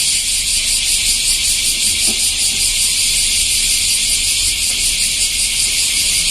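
A chorus of cicadas buzzing steadily: a loud, dense, high-pitched hiss with a fast pulsing texture, with a faint low rumble underneath.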